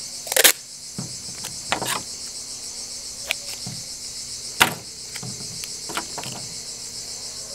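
Steady high-pitched chirring of an insect chorus. Over it come a few short rasps and clicks of duct tape being pulled off the roll and cut with scissors, the loudest about half a second in and again a little after four seconds.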